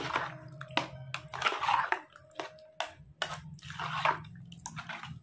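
Yogurt being stirred in a bowl with chopped vegetables and salt: repeated wet squelching strokes, with a few sharp clicks against the bowl.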